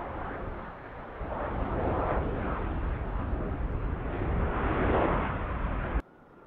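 Jet engine noise from a formation of fighter jets flying overhead: a steady rushing sound with no clear pitch. It swells about two seconds in and again near five seconds, then cuts off abruptly about six seconds in.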